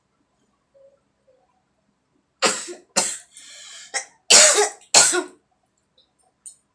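A woman coughing hard: five harsh coughs in quick succession, starting about two and a half seconds in, with a rasping breath drawn in between the second and third. The coughs come instead of the sneeze she is trying to bring on by tickling her nose.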